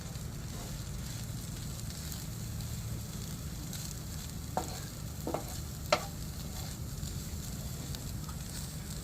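Food sizzling steadily on a barbecue grill, with three short clicks about midway through.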